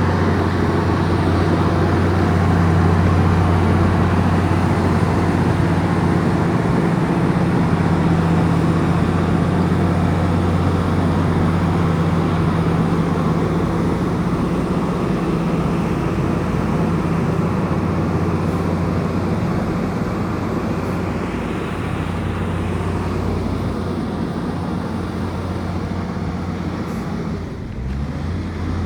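Komatsu bulldozer's diesel engine running steadily with a deep, even hum, easing off slightly and dipping briefly near the end.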